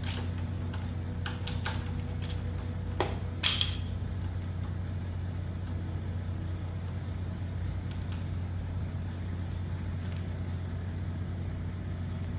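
A few sharp metallic clicks and taps from hand tools working the front fork pinch bolts of a motorcycle, bunched in the first few seconds, over a steady low hum.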